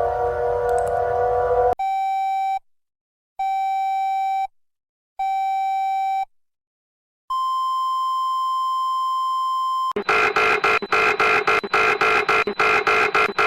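A sequence of electronic emergency alert tones: a sustained chord of several tones cuts off, followed by three beeps about a second long each, then a single steady higher tone for nearly three seconds, then a fast pulsing chord-like alarm at about three pulses a second.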